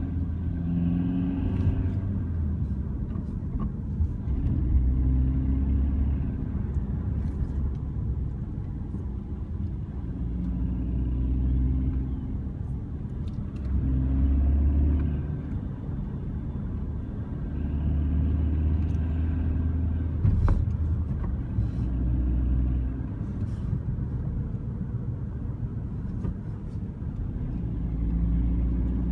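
A car on the move: a low rumble and growl that swells and eases every few seconds, with scattered short knocks and crackles. These are the knocking, growling and crackling noises the car makes while driving, a fault of unknown cause.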